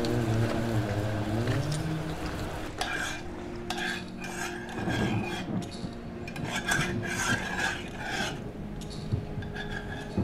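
Cutlery scraping and clinking against metal bowls and a pot as two people eat, in a run of short irregular scrapes. Sustained music tones fade out during the first two seconds.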